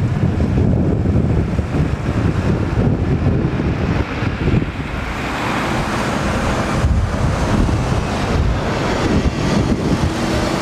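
Wind buffeting the microphone over road traffic: a box truck pulls away, then a single-deck city bus drives past close by, its engine and tyres getting louder about halfway through.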